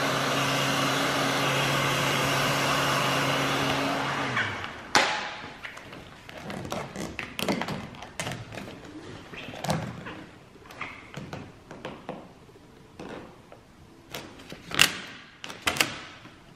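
Handheld heat gun running, a steady blowing hiss over its motor hum, as it warms vinyl tint film to soften it for stretching; it shuts off about four and a half seconds in. Scattered taps and clicks of gloved hands pressing and stretching the film over the tail light follow.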